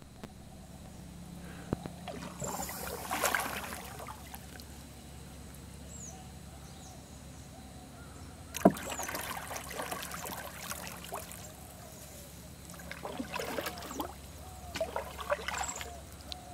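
Canoe paddle strokes in calm water: the blade dipping and pulling through with a swirling splash and drip, in several spells of strokes. A single sharp knock comes about nine seconds in, the loudest sound.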